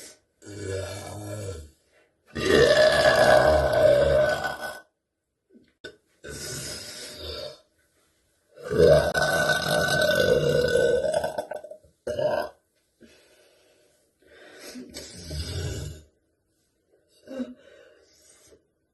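A woman burping loudly, again and again: about seven separate burps with short silences between, the two longest and loudest each lasting two to three seconds, the others shorter and quieter.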